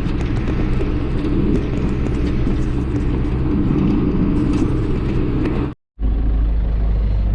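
Case 1090 tractor engine running steadily under way, a loud low drone. It drops out for a split second near six seconds in and comes back as a deeper, steadier drone.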